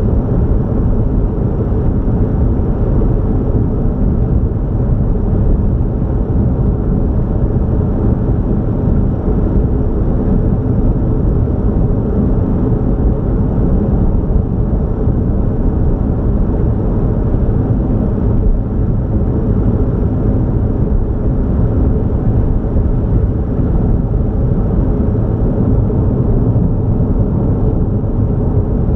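Steady low rumble of a vehicle cruising at highway speed: engine, tyre and wind noise without a break.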